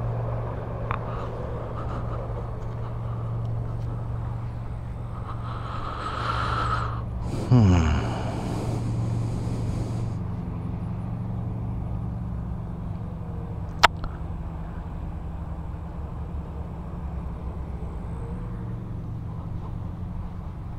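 A road vehicle passes close by about halfway through, its engine note falling steeply in pitch as it goes, over a steady low traffic hum. A single sharp click comes a few seconds later.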